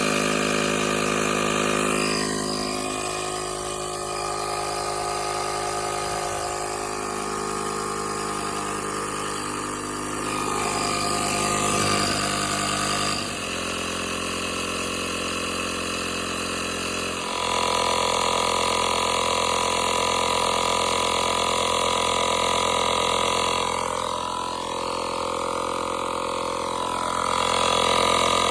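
Portable tire-inflator air compressor running steadily while pumping up a freshly plugged car tire toward 50 PSI. Its tone shifts twice around the middle as the load changes.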